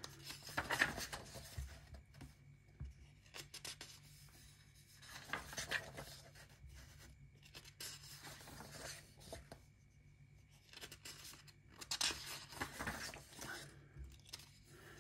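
Paper pages of a colouring book being turned and handled, rustling and swishing softly several times.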